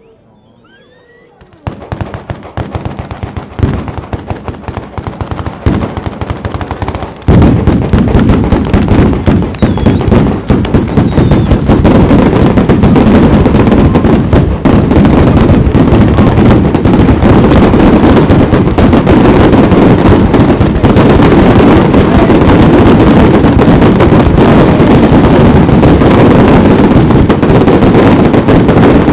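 A bolognese-style ground firework battery (a long chain of firecrackers): rapid bangs start about a second and a half in, come in loose volleys at first, then become a dense, continuous barrage of explosions from about seven seconds in.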